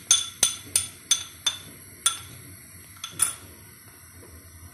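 Metal spoon tapping against the rim of a cut-glass bowl to knock ginger-garlic paste off into a pan: sharp, ringing clinks, about three a second at first, then a few more spaced out.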